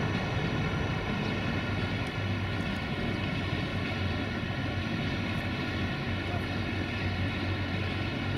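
Railway locomotive running steadily, a constant machine drone with many even steady tones over a low rumble.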